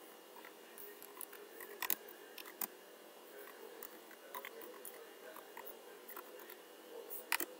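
Computer keyboard typing: faint, irregular keystroke clicks, a few of them louder, about two seconds in and again just before the end.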